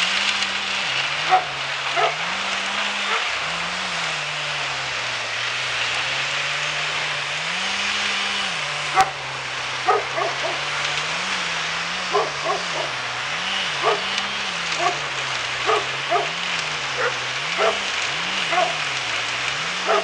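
A dog barks again and again, short sharp barks coming most often in the second half, over the steady running of a wood chipper's engine, whose pitch wavers up and down.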